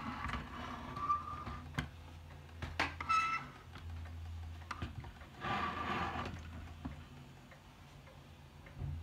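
Irregular clicks and light knocks from a handmade brass-and-wood lamp being handled, with a brief metallic ring just after three seconds and a rustle of handling around the middle. A low steady hum runs underneath.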